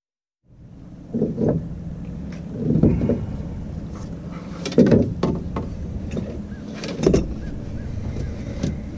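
Knocks, bumps and scuffling as a large flathead catfish is handled and lifted up from the bottom of a small aluminium fishing boat. Several loud thumps come at about one, three, five and seven seconds, over a steady low hum.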